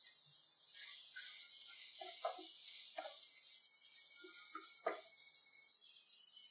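Vegetable masala sizzling faintly in a nonstick pan as a spatula stirs it, scraping and knocking on the pan a few times, the sharpest knocks about two and five seconds in.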